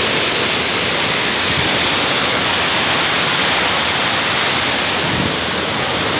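Heavy rain falling onto river water, a steady loud hiss.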